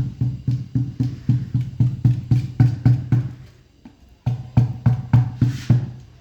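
Hammer tapping a washing machine's drum seal into the tub, quick even blows about four a second, pausing briefly about four seconds in before going on; the seal would not go in by hand.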